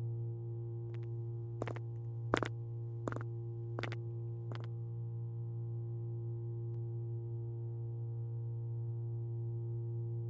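Steady low electrical hum of a fluorescent ceiling light. Six short taps come about two-thirds of a second apart during the first five seconds.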